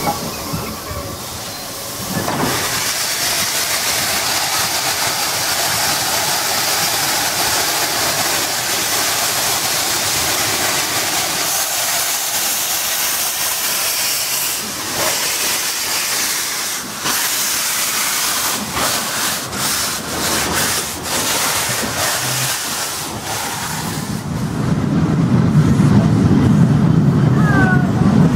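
ČSD class 498.1 "Albatros" steam locomotive 498.104 blowing steam out of its open cylinder drain cocks with a loud steady hiss as it starts the train, with sharp beats breaking through in the middle. Near the end the hiss gives way to the low rumble of its carriages rolling past.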